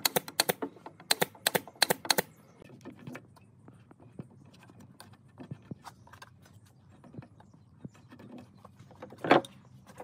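A quick run of about eight sharp clicks in the first two seconds, then scattered lighter taps and one louder knock near the end: the clatter of hand work with tools and wood pieces.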